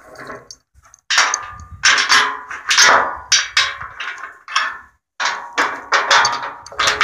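Heavy rusty steel chain clanking against itself and against the steel boom of the wrecker as it is handled. The sound is a run of sharp metallic clangs in two spells, with a short break about five seconds in.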